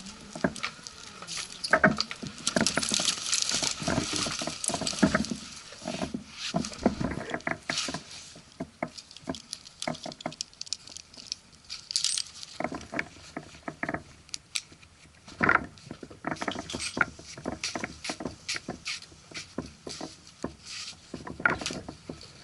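Irregular clicks, knocks and rustling, with some metallic rattling, from a tree climber moving among branches and handling gear; no saw is running.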